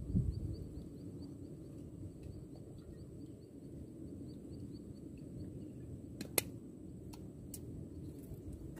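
Outdoor background noise: a steady low rumble with a faint high chirp repeating a few times a second. A single sharp click comes about six seconds in.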